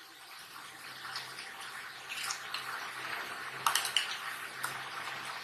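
Metal spoon stirring tartar sauce (mayonnaise with chopped pickles and onion) in a small bowl: soft wet squishing with a few light clinks of the spoon against the bowl in the second half, over a faint steady low hum.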